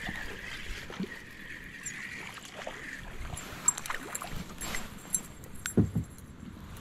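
Spinning reel cranked fast to bring in a hooked bass, a steady whir for the first three seconds or so. The fish is then lifted from the water with splashing and the clink of the spinnerbait's metal blades, and a couple of dull knocks come near the end.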